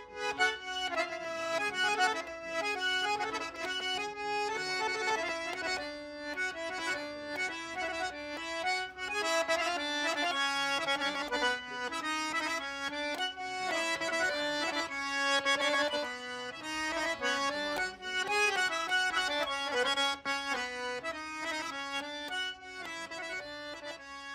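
Background music: a traditional-style accordion tune, a quick melody running over one long held low note.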